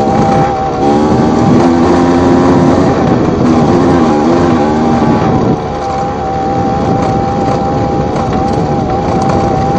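Two-stroke single-cylinder engine of a Yamaha TZR / MBK X-Power motorcycle bored out to 90 cc, ridden under throttle. The engine note rises and wavers for about five seconds, then drops quieter and steadier as the throttle is eased.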